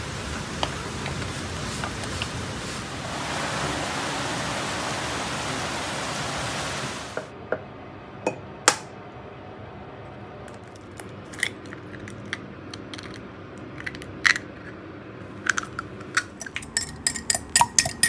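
Steady hiss of rain, which cuts off about seven seconds in. Then scattered clinks and taps of an egg and utensils on ceramic bowls, and near the end a wire whisk beating an egg in a ceramic mug with fast, rapid clicks.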